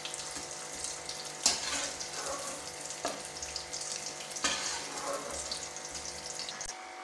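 Hot oil sizzling in a wok, its flame just turned off, as fried mutton pieces are lifted out with a metal slotted spatula. Three times, about a second and a half apart, the spatula scrapes or knocks against the pan.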